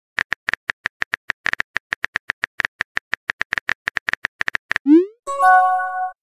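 Phone-keyboard typing clicks, quick and irregular, for about five seconds as a text message is typed, then a short rising whoosh and a chime of several held tones as the message is sent.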